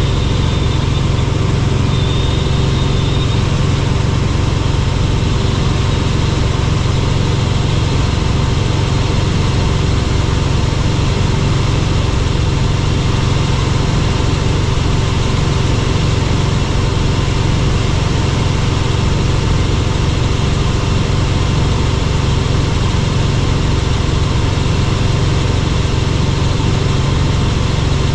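Helicopter in flight: loud, steady rotor and engine drone that is heaviest in the low range, with a steady hum above it and no change in pitch. A faint high whistle sounds briefly in the first few seconds.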